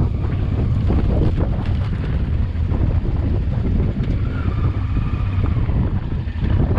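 Wind buffeting the microphone over the low, steady running of a Honda Transalp XL600V's V-twin engine while riding, with scattered knocks and rattles from the rough unpaved track.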